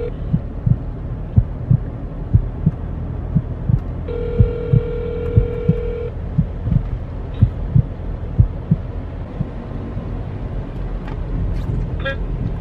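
Phone ringback tone through a smartphone's speaker: one steady two-second ring about four seconds in, an outgoing call that is not being answered. Under it run a steady low hum and short low thumps in pairs about once a second.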